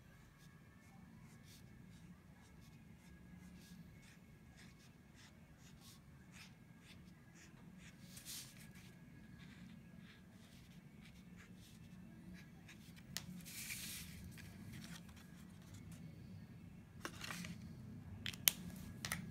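Felt-tip marker drawing on cardstock: faint, irregular ticks and short scratchy strokes as small leaves and dots are drawn. A sharp click comes near the end as the marker is capped.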